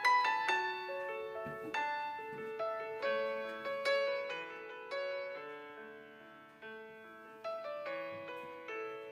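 Background music: solo piano playing a gentle melody of single struck notes that ring and fade.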